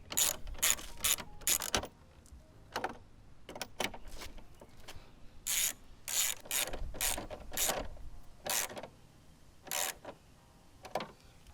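Hand ratchet with a socket being cranked back and forth to drive home the fender and trim fasteners, clicking in short runs of strokes with brief pauses between.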